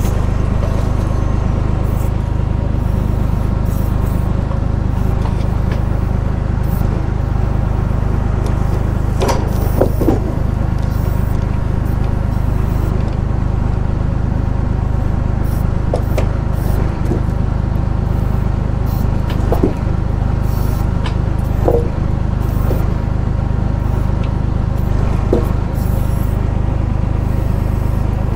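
Tractor engine running steadily at working revs, driving the hydraulics of an FTG FB42 timber crane during log loading. Several sharp wooden knocks of logs bumping together, the loudest about ten and twenty seconds in.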